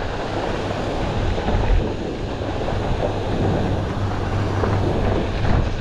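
Fire hose water jet rushing steadily, over the low, steady hum of a pump engine.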